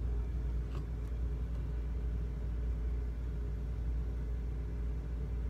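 Steady low mechanical hum with faint steady tones above it, and a faint click about a second in as the glazed ceramic bowl is handled.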